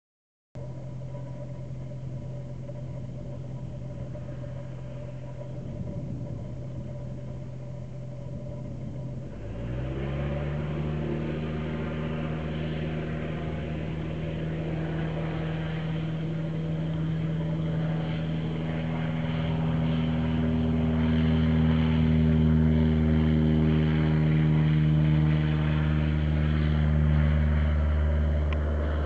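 Cessna 172's piston engine and propeller running steadily at low power, then throttled up to full power about a third of the way in: the pitch jumps up and the engine grows louder over the following seconds of the takeoff run, easing off slightly near the end.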